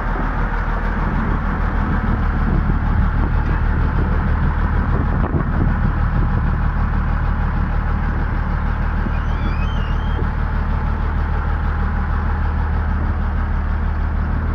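Komatsu bulldozer's diesel engine running steadily, with a constant low hum.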